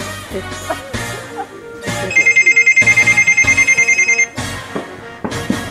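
Telephone ringing: a rapid trilling two-tone ring lasting about two seconds in the middle, over quieter background music.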